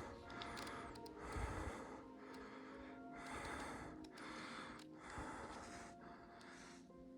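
A person breathing hard in a steady rhythm, about one breath a second, close to the microphone, over faint background music.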